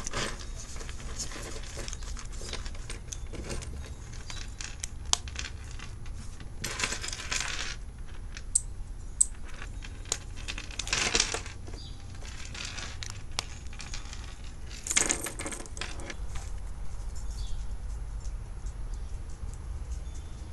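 Handling of a leather wallet: paper bills and leather rustling in three short bursts, with scattered sharp metal clicks and clinks from its snap fastener and steel wallet chain.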